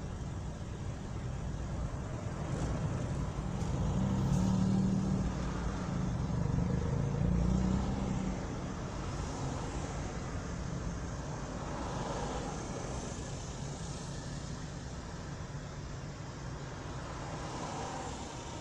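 Steady low engine and road hum of a car creeping in slow city traffic, heard from inside the car. The hum swells louder from about four to eight seconds in, then settles back.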